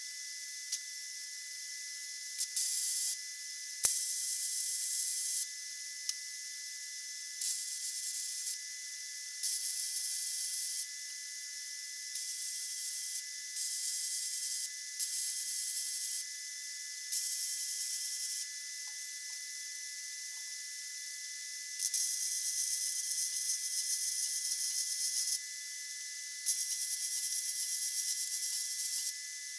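MIG welder (Hobart Handler 190) laying a series of short welds on steel: the arc runs in about ten separate stretches of one to three seconds each with short pauses between, each starting sharply, the two longest near the end.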